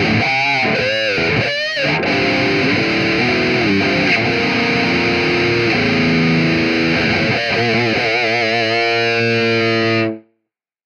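Distorted electric guitar playing a lead melody. It moves through a run of notes and held notes shaken with wide vibrato, and ends on a long vibrato note that cuts off suddenly about ten seconds in.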